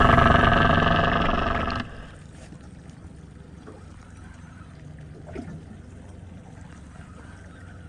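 A boat's engine running loud and steady, cutting off suddenly about two seconds in. Faint water sounds and a few small knocks follow.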